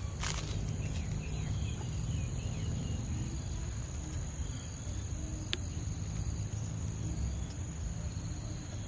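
Outdoor ambience: a steady high insect drone over a low rumble, with one sharp click about five and a half seconds in.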